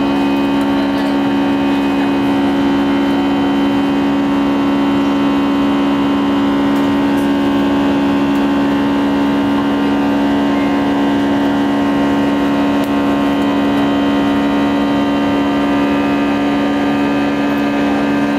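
Airbus A320 turbofan engines at climb power, heard inside the cabin: a steady drone with a strong low hum and a spread of fainter steady whines over a rush of air.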